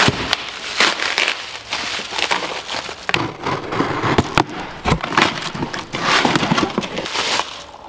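Plastic packaging wrap crinkling and crackling irregularly as it is pulled off, and packing tape on a cardboard box being cut with scissors.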